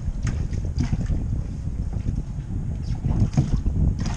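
Wind buffeting the microphone in a loud, uneven low rumble, with a few short sharp clicks scattered through.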